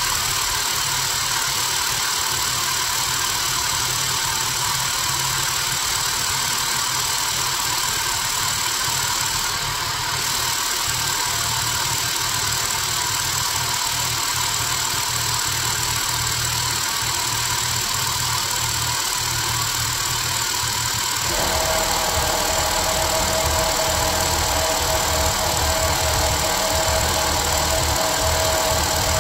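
Hydraulic press pump running steadily while the ram slowly crushes two paint cans. About 21 seconds in the note changes: a steady hum comes in and it gets a little louder.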